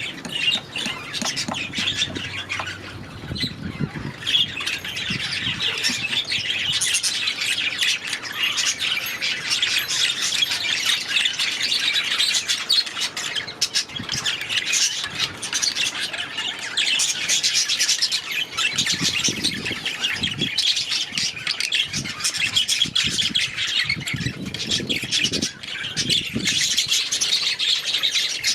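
A flock of budgerigars chattering and warbling in an aviary, many overlapping high chirps and squawks with no break.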